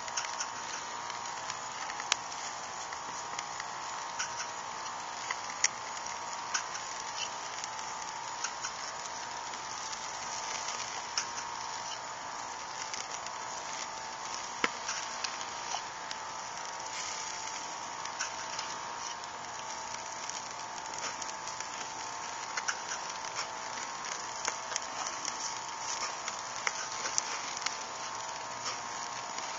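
Iguana meat sizzling on a charcoal grill over live coals and flames, with a steady hiss and frequent irregular pops and crackles. A faint steady hum runs underneath.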